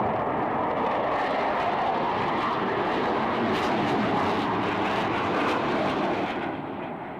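Blue Angels F/A-18 Hornet jets flying over, a steady jet roar that fades about six and a half seconds in.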